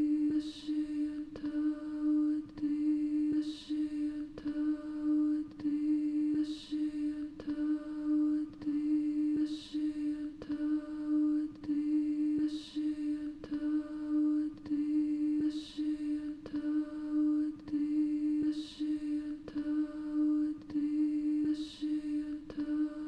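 A woman's voice singing a slow, chant-like lullaby over a steady hummed drone. A layered vocal phrase comes round again exactly every three seconds, with a soft breathy hiss at each turn.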